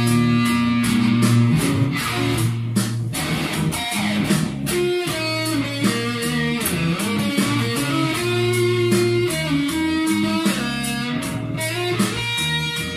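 Fender electric guitar playing a blues-rock instrumental line over a steady backing beat, with sustained low notes underneath.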